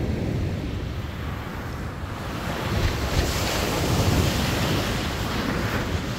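Sea surf breaking and washing up a sandy beach, with wind buffeting the microphone. The hiss of the wash swells about two and a half seconds in.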